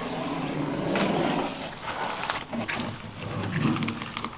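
Blue masking tape being peeled off a boat hull along the newly painted anti-fouling waterline: an uneven rasping rip in long pulls, with sharp crackles as the tape comes free.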